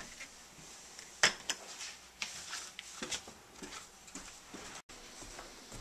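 A series of light, scattered clicks and knocks, the sharpest about a second in, with a sudden break near the end.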